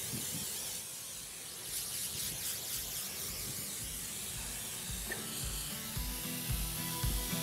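Aerosol can of rust and corrosion protectant spraying through its red extension straw, a steady hiss. Background music with a beat comes in about five seconds in.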